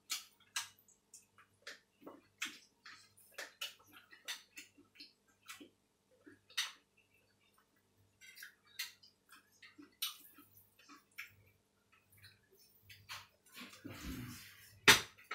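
Quiet eating sounds: scattered light clicks of chopsticks against a bowl and of chewing, then a longer slurp of noodles near the end, closed by one sharp, louder tap.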